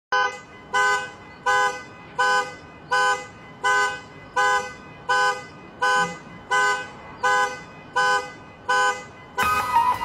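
A car alarm blaring the car's horn in a steady repeating pulse, about one and a half short honks a second. Music with drums and keyboard comes in near the end.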